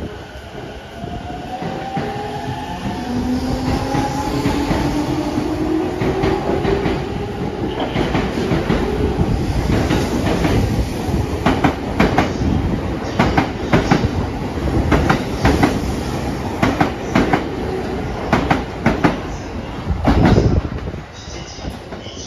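JR E231 series 800 commuter train pulling away and speeding up. Its VVVF inverter gives two whines that rise in pitch together through the first several seconds, the sound this series is known for as the 'ghost inverter'. The wheels then clack steadily over rail joints and points as the cars pass, with a heavy thud near the end.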